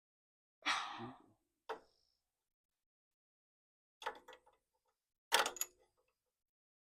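A sigh, then a few light metallic clicks and clinks of a wrench working a bolt on a lawn mower's carburetor, loudest near the end.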